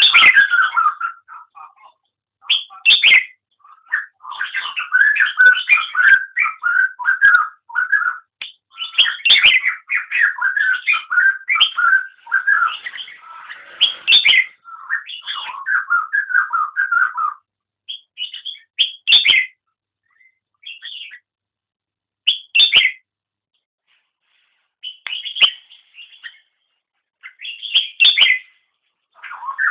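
Caged red-whiskered bulbul singing loud whistled, warbling phrases, almost without a break for the first half, then in short separate phrases with pauses between them.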